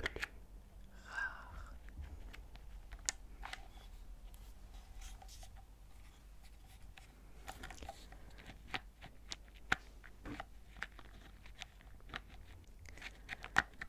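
Small alphabet stamps being handled in their wooden compartment box close to the microphone: scattered light clicks and taps, irregular, a few a second at most.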